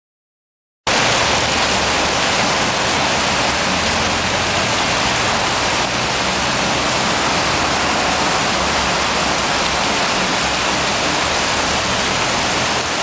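Heavy downpour: a loud, steady, even hiss of rain, cutting in abruptly about a second in.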